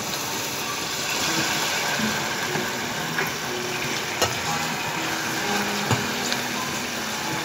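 Sliced onions frying in oil in a stainless steel pan: a steady sizzle as soy sauce and then broth are poured in, with a few light clicks of a ladle against the pan.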